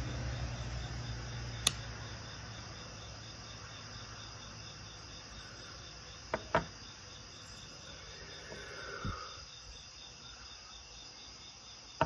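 A Zippo lighter's lid snaps shut with one sharp metallic click a couple of seconds in, right after the lighter is used to light a cigarette. Crickets chirp steadily throughout, with a couple of soft knocks around the middle.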